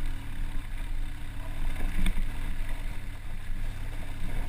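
A 110 cc motorcycle's single-cylinder engine running at low revs under load, pulling up a loose, rocky trail in first gear. A single knock comes about two seconds in.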